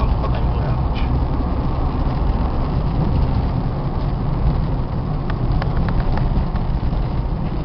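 Car engine and tyre rumble heard from inside the cabin while driving on a rough, pothole-ridden street, with a few faint clicks about a second in and again near the end.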